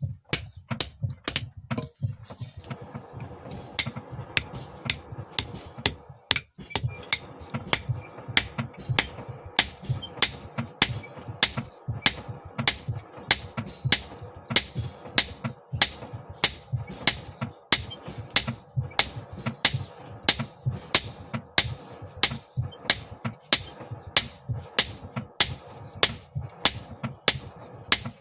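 Hand hammer striking a hot steel file on an anvil, about two blows a second, as the blade is forged. A steady hum runs underneath from about two seconds in.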